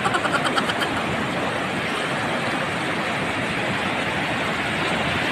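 Sea surf breaking and washing through the shallows: a steady rush of water noise.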